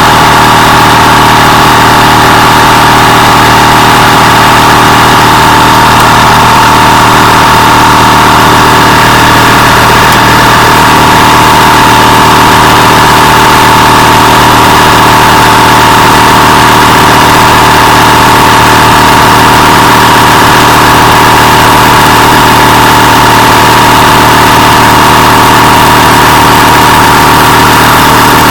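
Metabo HPT cordless 2-gallon air compressor's motor and pump running steadily under load as it refills the bled-down tank, a constant loud drone with a strong high whine on top. It runs without cutting out.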